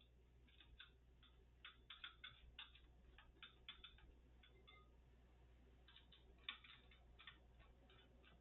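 Faint, irregular light clicks and taps of a plastic computer case fan being handled and fitted into the case, coming in two loose clusters over a low steady hum.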